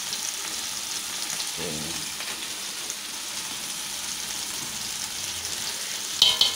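Chopped tomatoes frying in hot oil in a wok, a steady sizzle, stirred with a wooden spatula. Near the end come a few loud sharp scrapes and knocks of the spatula against the wok.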